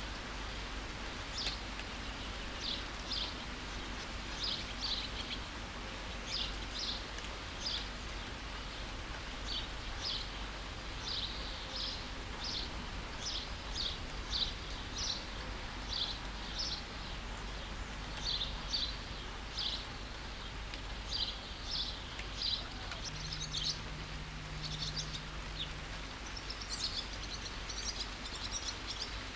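Steady rain with a bird repeating short, high chirps about once or twice a second, and a burst of denser twittering near the end.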